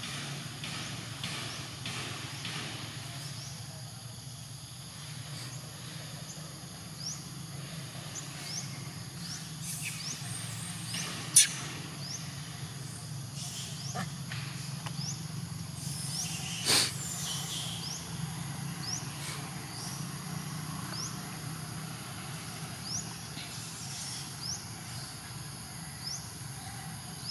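Outdoor forest ambience: a steady high insect drone over a low steady hum, with short rising chirps every second or two. Two sharp louder clicks stand out, a little before the middle and again about five seconds later.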